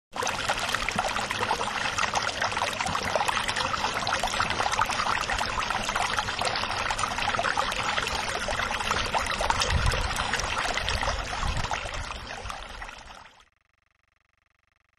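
Steady running water with no tune or voice, which tapers slightly and then cuts off about thirteen seconds in.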